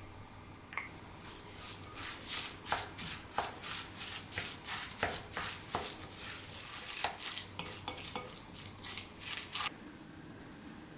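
A wooden spoon stirring and mashing egg salad with chopped apple and mayonnaise in a glass bowl: irregular scraping and tapping strokes against the glass. The strokes stop shortly before the end.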